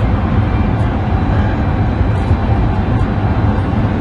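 A steady, loud low rumble with no clear rhythm or pitch.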